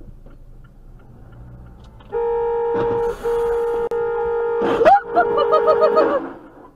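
Car horn held for about four seconds, with a crash of colliding cars partway through; near the end a second, higher horn sounds over it in quick short toots.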